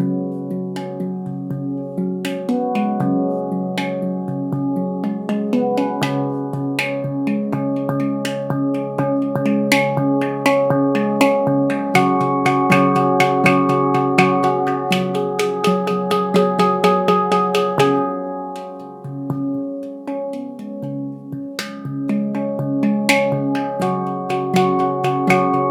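Ragadesh 'Leaf' handpan sound sculpture tuned to C#, played by hand in quick runs of struck notes that ring on and overlap. About two-thirds through, the playing thins out briefly, then builds again.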